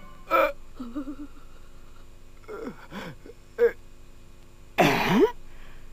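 Cartoon character voices making short startled gasps and wordless exclamations. The loudest, about five seconds in, is a cry that slides down in pitch.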